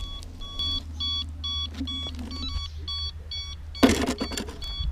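Self-balancing hoverboard sounding its flat-battery warning: a steady series of short, evenly repeated electronic beeps, about two a second. A loud knock and rustle breaks in about four seconds in.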